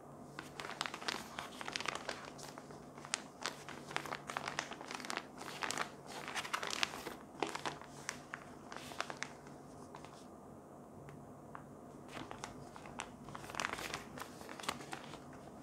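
Thin plastic zip bag crinkling and crackling as it is handled and turned over in the hands. There is a quieter spell about two-thirds of the way through, then more crinkling.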